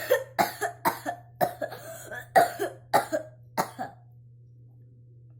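A woman coughing hard with her mouth open, about eight coughs in quick succession, stopping a little before four seconds in. This is open-mouthed coughing, the technique a pulmonologist calls wrong.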